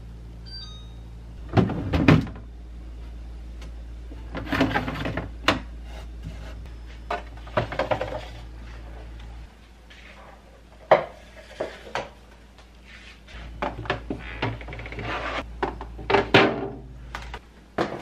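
Plastic and glass food containers and jars knocking and clattering as they are taken out of a refrigerator and set down on a wooden counter, with handling rustle between the knocks, over a steady low hum. A short electronic beep sounds right at the start.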